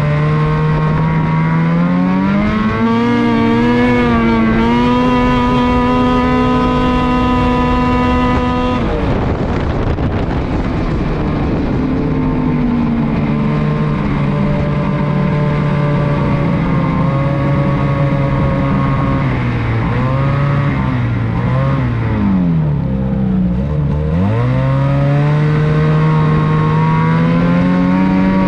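Ski-Doo E-TEC 850 two-stroke twin engine pulling the snowmobile away from a standstill, with the primary clutch clickers set to position 4: the revs climb, then hold steady while the sled picks up speed. About nine seconds in the revs drop off sharply. Later they dip and swing up and down twice before climbing again near the end.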